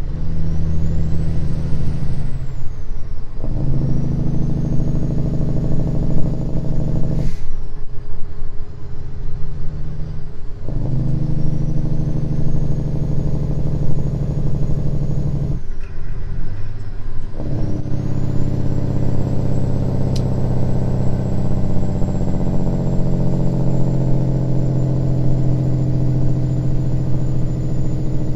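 Straight-piped 550 hp Caterpillar diesel of an old Western Star truck, heard from the cab, with its Jake (engine) brake barking in a loud, rapid rattle. The sound breaks off briefly four times as gears are changed, and a faint whine rises and falls above it.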